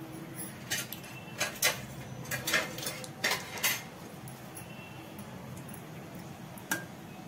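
Cumin seeds and a dried red chilli sautéing in hot oil in a kadhai, with a run of sharp pops and crackles over a few seconds. A single click near the end as a metal spatula goes into the pan.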